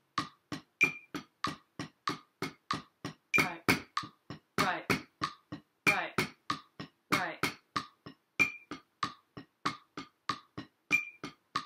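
Wooden drumsticks playing steady double strokes on a drum practice pad, about three strokes a second, some louder than others. They play along with a metronome app at 95 BPM, whose higher beep sounds about every two and a half seconds.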